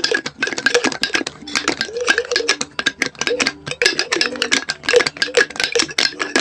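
Dense, irregular clicking and tapping close to the microphone, over background music with a wavering melody.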